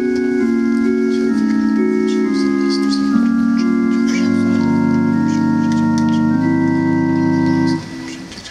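Organ playing slow sustained chords that change every second or so. From about four seconds in it settles on a long held chord with a deep bass note, which stops near the end.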